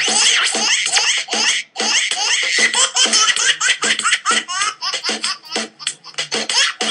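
A baby laughing hard in quick repeated bursts of giggles, each burst rising in pitch: a laughing-baby ringtone.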